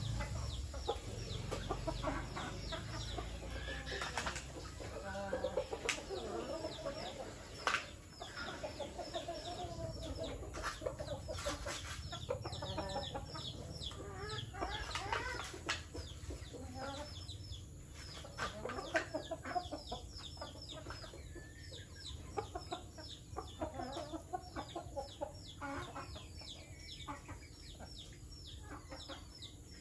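A flock of domestic chickens clucking and calling while foraging, with many short high chirps throughout.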